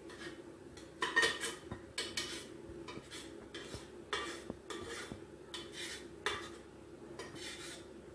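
Metal spoon scraping boiled peas out of a metal pot into a pan, a run of scrapes and clinks of metal on metal about once a second.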